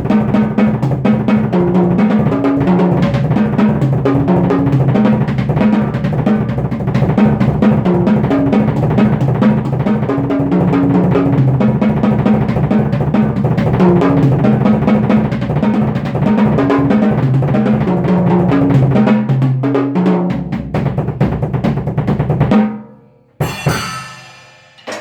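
Drum kit played fast and dense, with rapid bass drum, snare and tom strokes. It stops abruptly near the end, followed by one last loud hit.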